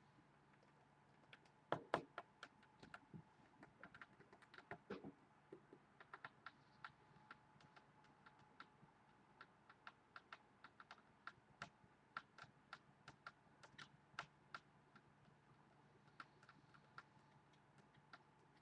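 Faint typing on a computer keyboard: irregular key clicks, several a second, with two louder clicks about two seconds in, over a faint steady hum.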